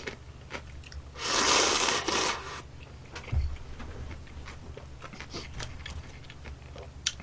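Budae jjigae ramen noodles slurped in one long slurp about a second in, followed by chewing with small wet mouth clicks.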